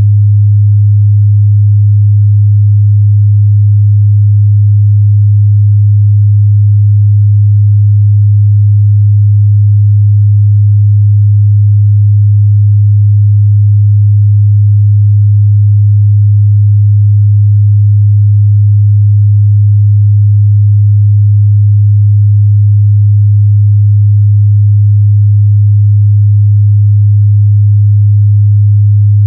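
A steady, loud 103 Hz sine-wave test tone: a single low bass hum held at constant pitch and level, with no change or break.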